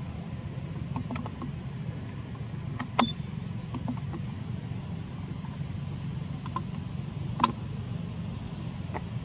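A steady low hum runs in the background, with a few sharp clicks. The loudest clicks come about three seconds in and again about seven and a half seconds in.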